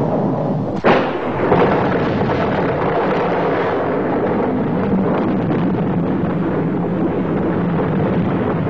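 Storm sound effects on an old film soundtrack: a sharp crash about a second in and a smaller one just after, then a steady rush of wind, rain and surging water.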